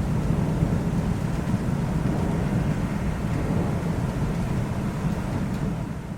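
Thunderstorm: a long, steady low rumble of thunder under the hiss of rain, fading away near the end.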